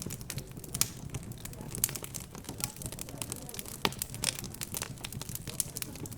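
Wood fire crackling with frequent irregular pops, over a low murmur of background chatter.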